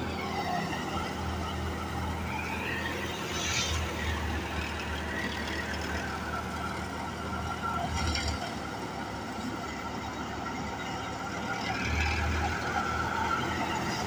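Tractor-driven wheat thresher running steadily with the tractor engine, a constant low hum, with a few brief louder swells.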